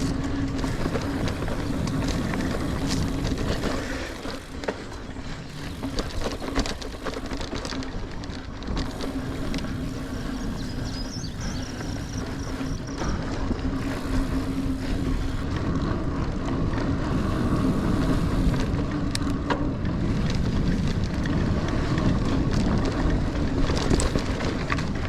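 Niner Air 9 RDO mountain bike riding dirt singletrack: tyres rolling with a steady hum, and the bike rattling and clicking over bumps, with wind on the microphone.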